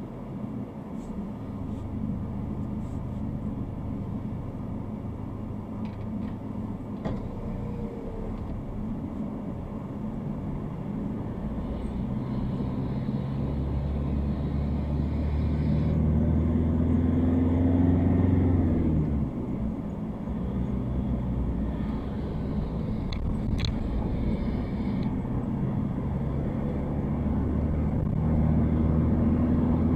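Car engine and road noise heard inside the cabin while driving. The engine note climbs through the middle, drops suddenly about two-thirds of the way in, then rises again near the end.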